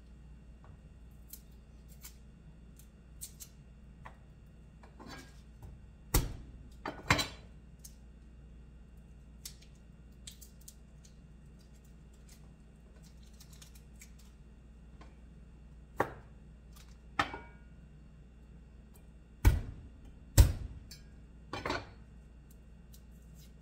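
Garlic cloves being peeled by hand: dry papery skins crackling and ticking, broken by several sharp knocks and taps, a few of them heavier thuds, over a steady low hum.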